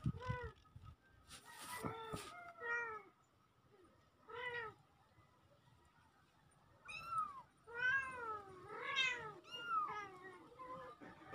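Domestic kitten meowing repeatedly: about a dozen short, high, rising-then-falling meows in small clusters, with a quiet spell in the middle and a quicker run of calls in the second half.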